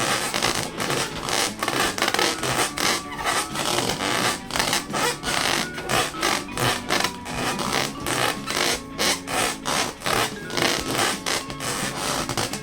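Rubber balloons being rubbed and squeezed by hand, a rapid series of rasping, squeaky rubbing strokes, about two to three a second.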